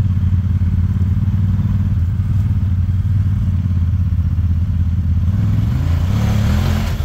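Honda Talon X4 side-by-side's 999 cc parallel-twin engine pulling at low revs as it crawls up a rocky hill climb. Near the end the revs rise and a rush of tyre and rock noise comes in as the throttle is opened.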